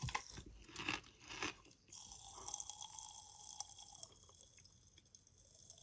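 Watermelon popping candy crackling in the mouth: a faint, dense patter of tiny pops, after a few short rustles in the first second or so.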